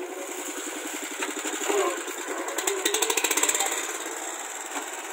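Swaraj 12 hp mini tractor's engine running with a rapid, even beat that grows louder about three seconds in.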